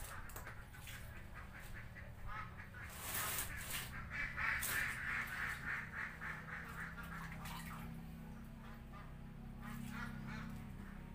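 Domestic ducks quacking in rapid runs of short calls, loudest in the middle.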